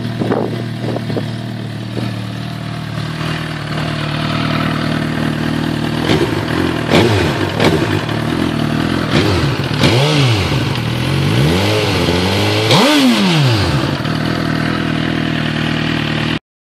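Suzuki GSX-R1000 K8 inline-four running through twin Akrapovic slip-on exhausts with the catalyst removed: it idles steadily, then the throttle is blipped several times, each rev rising and falling, the last one the highest.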